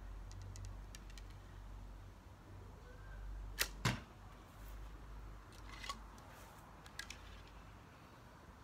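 A fiberglass bow shot: two sharp cracks about a third of a second apart as the bowstring is released and the arrow leaves. A few fainter clicks follow as the next arrow is handled and nocked.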